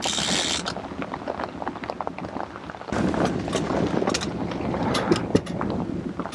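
Wind buffeting the microphone over the steady running of a small outboard motor pushing a trolling boat, with scattered clicks and knocks; it gets louder about three seconds in.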